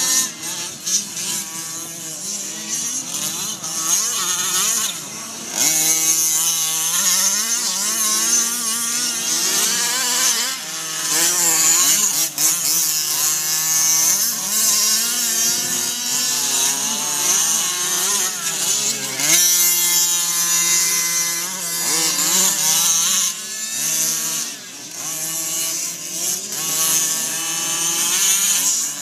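Small two-stroke petrol engines of 1/5-scale Losi RC cars racing, revving up and dropping back over and over, several engines at different pitches overlapping.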